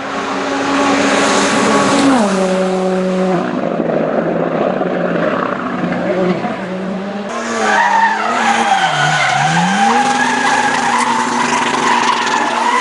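Hill-climb race car engine running hard at high revs, with tyres squealing. The engine note steps down about two seconds in and dips and climbs again later as the car works through the gears.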